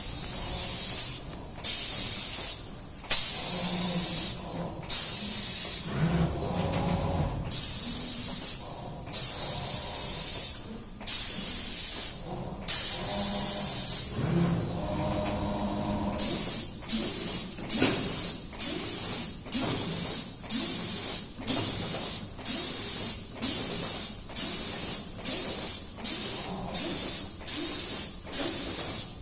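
The automatic spray gun of a CNC spraying machine hissing in on-off bursts of atomised paint as it sprays cabinet doors. The bursts are long and uneven at first; after about sixteen seconds they become short and regular, nearly two a second, as the gun pulses across the panel.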